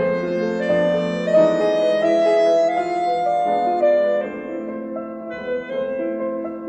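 Instrumental background music: a slow melody of held notes over accompanying chords.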